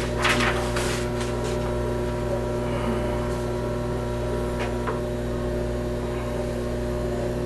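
Steady electrical hum from an emergency radio dispatch console, which the operator puts down to the radio repeater still hanging on the channel. A few clicks come near the start, and two steady high tones sound together from about a second in to about five seconds.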